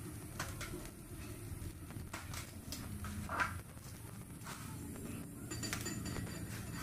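Scattered light clicks and taps from hands working at a cake turntable, over a steady low hum.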